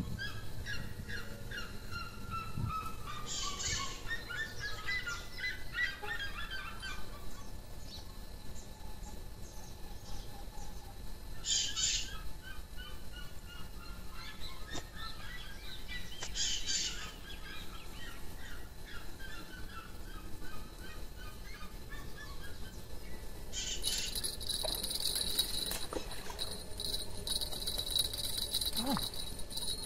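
Birds calling in quick runs of short notes that step down in pitch, again and again. About two-thirds of the way in, a steady high-pitched drone starts and keeps going.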